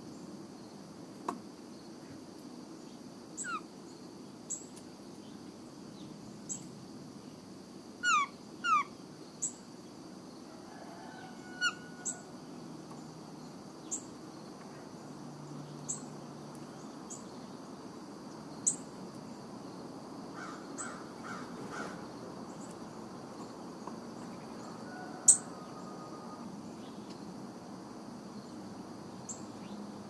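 Wild songbirds calling: a dozen or so short, sharp chip notes spread out, the loudest about 25 seconds in, and a few quick calls sliding down in pitch. A steady high insect drone runs underneath.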